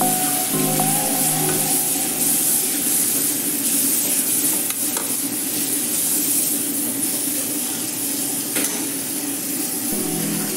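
Chopped greens sizzling as they fry in a stainless steel pan, stirred with a wooden spatula, with a couple of sharp knocks of the spatula against the pan about five and eight and a half seconds in.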